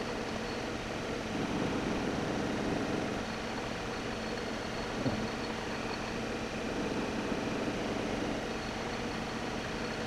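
Metal lathe running under power during dry single-point thread cutting of a cast-iron part, a steady mechanical hum that swells louder twice, with one sharp click about halfway through.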